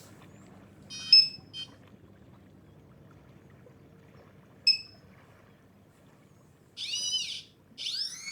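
Short, sharp single-pitch beeps from the XP MI-4 pinpointer's newly replaced piezo buzzer: two close together about a second in and one near the middle, showing the buzzer works again. Near the end come two longer tones that rise and fall in pitch.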